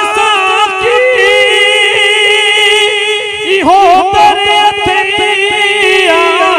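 A man singing a Sindhi molud, a devotional praise poem to the Prophet Muhammad, into a microphone, drawing out long, wavering held notes, with a brief break for breath about three and a half seconds in.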